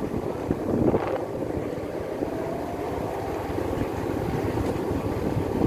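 Motorbike engine running at riding speed, with wind rushing over the microphone.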